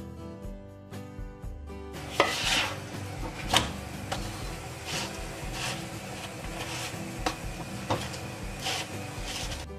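Puran poli sizzling in hot fat on a flat griddle, pressed and pushed around with a slotted nylon spatula; the sizzle starts about two seconds in, with a few sharp scrapes of the spatula, the loudest two close together near the start. Acoustic guitar music plays quietly underneath.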